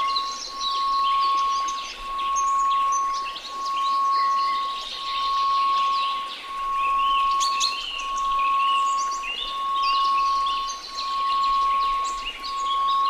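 A steady 1098 Hz sine tone for a delta-rhythm sound-therapy track, swelling and fading about once every second and a half, over a soft noise hiss and a busy layer of high chirping and twittering.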